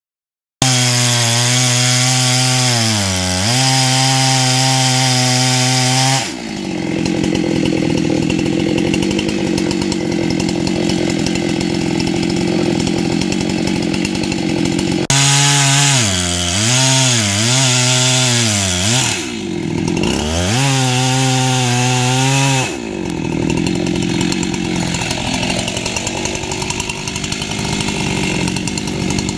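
Husqvarna chainsaw comes in abruptly at high revs, dipping a few times as the throttle is eased, then drops in pitch and turns rougher as the chain bites into the base of a decayed boxelder trunk. Just past halfway it is revving freely again with several throttle dips, then bogs back down into the cut near the end.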